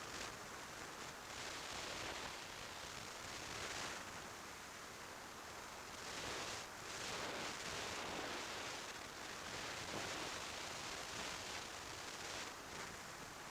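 Wind rushing over an action camera's microphone on a moving motorcycle: a steady hiss that swells and eases every few seconds.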